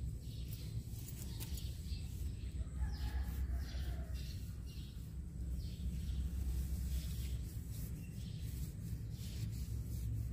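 Short scratchy scraping strokes, about two a second for a few seconds, typical of old grout being scraped out of pool tile joints, over a steady low hum. A rooster crows faintly in the background a few seconds in.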